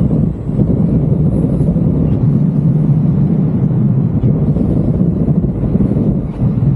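Wind rushing over the microphone in paraglider flight into a headwind: a steady, loud, low rumble with no breaks.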